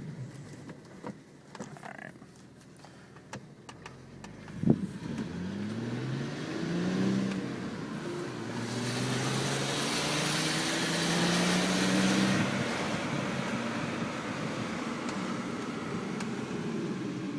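B5 Audi S4's twin-turbo 2.7-litre V6 accelerating through the gears, its note rising in pitch several times with each upshift, after a sharp knock about five seconds in; a rushing hiss rises over it for a few seconds in the middle. The car is being pushed to check a suspected turbo failure.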